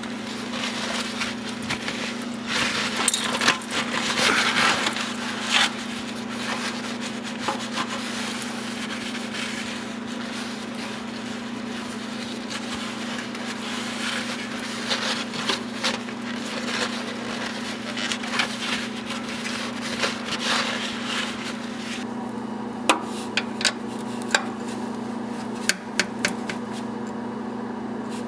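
Shop towel rubbing and scraping over the oil pan around the drain plug, with a handful of sharp clicks of hands and tools on metal near the end. A steady low hum runs underneath.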